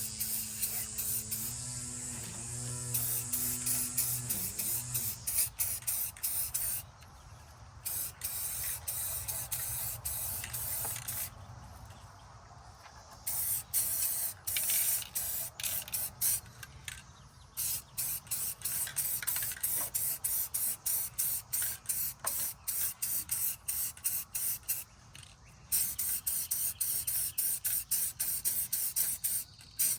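Aerosol spray-paint can hissing in many short, rapid bursts, with a few brief pauses. A low hum fades out over the first few seconds.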